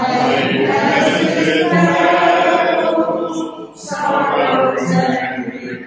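A small group of mixed voices singing a hymn together, in two long phrases with a short breath between them a little under four seconds in.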